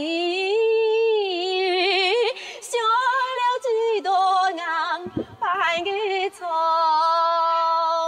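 A woman singing a Hakka mountain song unaccompanied, with wavering vibrato and ornamented turns on drawn-out notes. Near the end she holds one long steady note.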